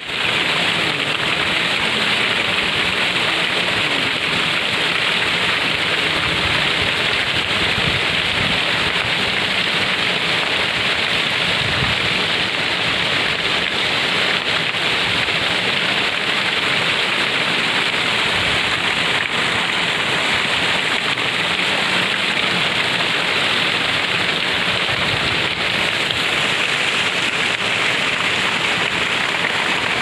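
Muktagiri waterfall in full flow after heavy rain, its water pouring down the rock face onto boulders: a loud, steady rush of falling water.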